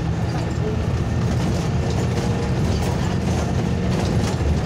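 A vehicle running steadily: a low engine hum with rattling and clicking over it.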